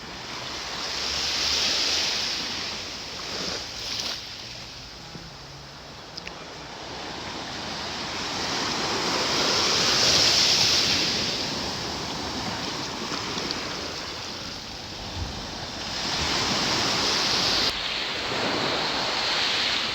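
Ocean surf on a beach: waves breaking and washing in, the rush of water swelling and fading three times.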